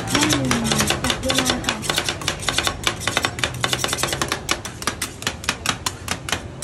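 Two metal spatulas chopping rapidly on the steel cold plate of a rolled ice cream stall, working the ice cream mix as it freezes: a fast, uneven clatter of sharp metal-on-metal clicks, several a second, stopping just before the end.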